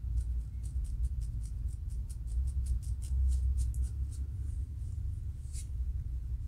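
Fingernails scratching and picking at a dry, flaking scalp between locs: a quick run of short, dry scratches at about five a second, then a pause and a single louder scratch near the end, over a steady low rumble.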